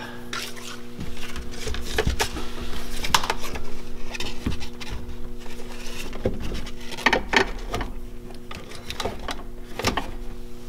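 Background music with a steady held tone, under scattered clicks and knocks of hands handling a wiring harness and the plastic pump unit of a Power-Pole shallow-water anchor.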